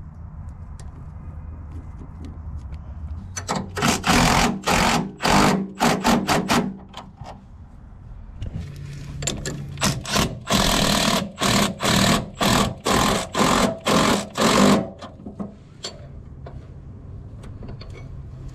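Cordless impact wrench driving the sway bar end link nut down on its stud in short trigger bursts, in two runs: one of a few bursts about three and a half seconds in, and a longer run of about ten bursts from about eight and a half seconds to fifteen seconds.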